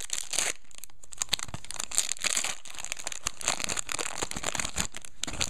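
Trading-card pack wrappers crinkling and tearing while packs are opened and the cards handled, with many irregular short rustles and clicks.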